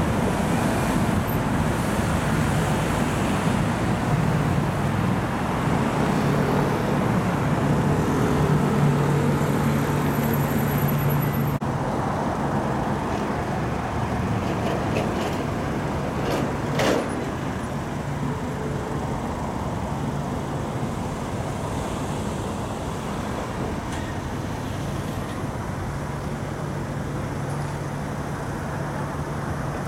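Road traffic passing: car, van and lorry engines running and tyres on the roadway, a steady rumble with a low hum that swells as heavier vehicles go by. One short sharp knock stands out about halfway through.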